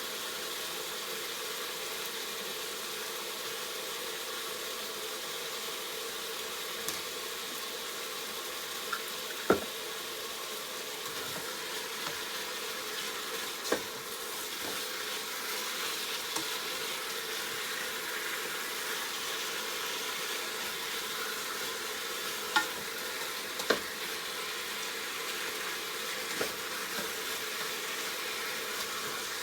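Sliced chicken breast sizzling steadily in hot oil in a crock pot on its brown/sauté setting, with a few sharp taps and clicks, the loudest about nine and a half seconds in.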